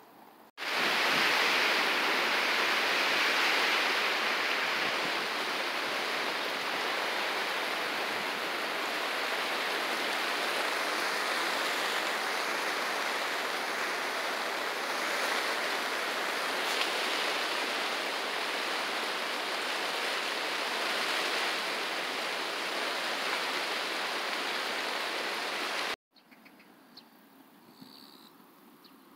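Steady, loud rushing of wind through a rice field and the tall grass beside it. It starts suddenly about half a second in and cuts off near the end.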